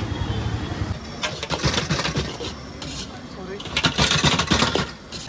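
Metal cooking utensils clattering in two quick runs of sharp strikes, one about a second in and a louder one near the four-second mark, over a steady low hum and background voices.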